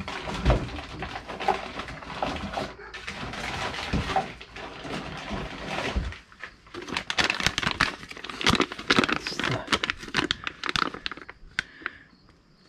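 Clear plastic parts bags crinkling and rustling as they are handled, with a few light knocks in the first half and denser crackling in the second half.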